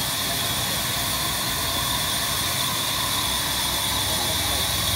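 A sawmill's log saw running steadily, a continuous machine noise with a high whine.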